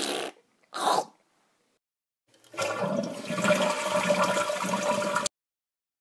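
Two short bursts of sound in the first second, then a toilet flushing: water rushing down the bowl with a steady humming tone for under three seconds, cut off abruptly.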